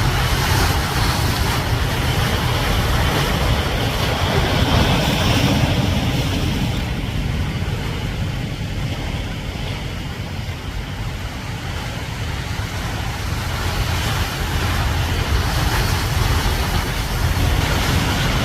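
Strong wind buffeting the microphone with a low rumble, over ocean surf breaking on rocks. The wind eases for several seconds in the middle, then picks up again.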